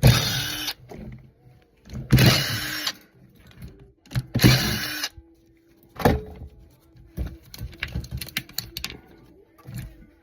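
Power drill run in three short bursts of under a second each, then small clicks and clatter of metal parts being handled, as a fan is stripped for scrap.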